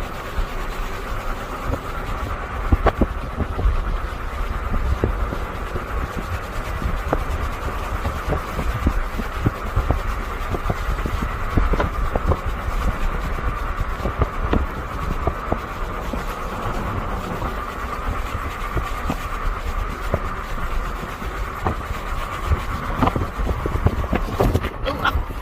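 A car on the move: steady road and tyre rumble with engine noise, and scattered short clicks and knocks all the way through.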